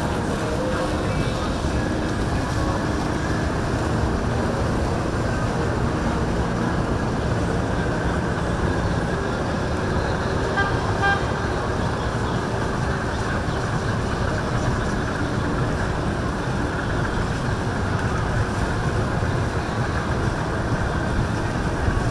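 Motorboat engines running steadily, with a few short high tones about ten seconds in.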